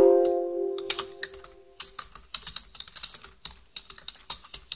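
A Windows alert chime rings as a Notepad warning dialog pops up, fading away over about a second and a half. Then rapid typing on a computer keyboard, quick keystroke clicks that run on to the end.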